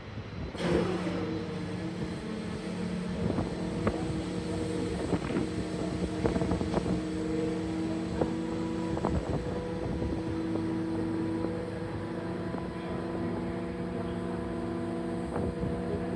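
Tender boat's engine running steadily, a hum of several pitches, with scattered light knocks.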